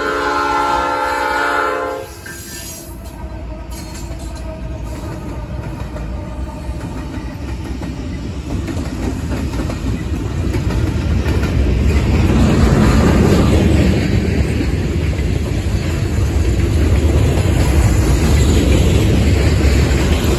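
Norfolk Southern diesel freight locomotive's air horn sounding a chord, cutting off about two seconds in. Then the locomotives rumble past, followed by freight cars rolling by on the rails, growing louder about halfway through.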